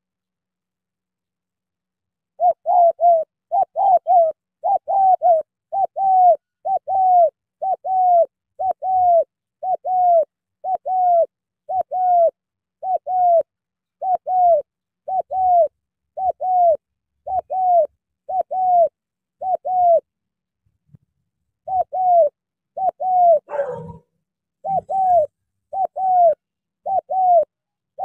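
Spotted dove cooing: a long series of short coos, each dropping slightly in pitch, often in pairs and about one to two a second, starting about two seconds in. A brief rustle cuts in near the end.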